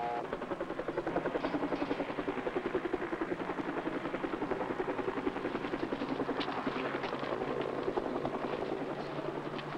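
Helicopter rotor beating in a rapid, even rhythm, growing slightly fainter toward the end.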